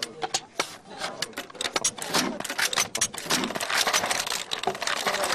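A dense, irregular clatter of sharp clicks and knocks, with a faint voice underneath.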